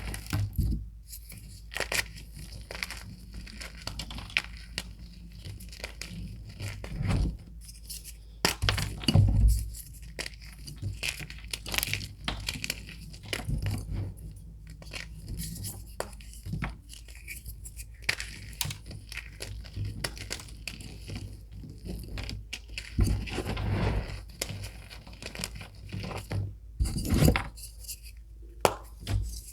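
Reformed gym chalk being crushed and crumbled: a dense, irregular run of crunches and crackles, with louder bursts of crumbling about nine seconds in and again near the end.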